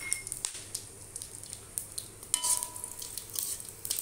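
Whole garam masala and cumin seeds sizzling and crackling in hot mustard oil in a metal karahi, with a brief louder metallic scrape of the spatula against the pan a little past halfway.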